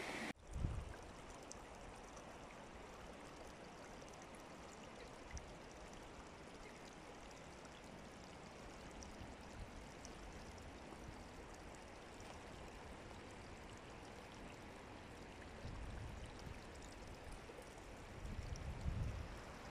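A mountain stream running faintly and steadily, with a few low rumbles near the end.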